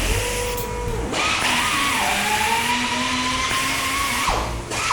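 Compressed air hissing at the tire's valve stem through an inflator chuck as the tire is brought to its set pressure, in two long bursts with a whistling tone. There is a short break about a second in.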